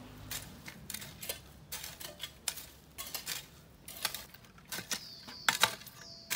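Metal hoe blades chopping into dry, stony garden soil: an uneven run of sharp clicks, knocks and scrapes, several a second.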